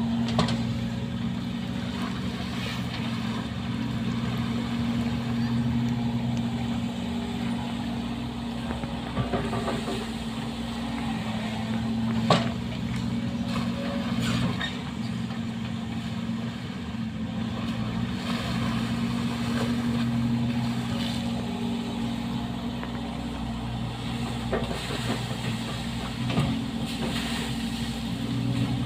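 Sumitomo SH130 excavator's diesel engine running steadily, with a few sharp knocks, the loudest about twelve seconds in.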